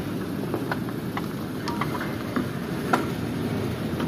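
Truck engine running steadily, with a handful of light, irregular clicks over the low rumble.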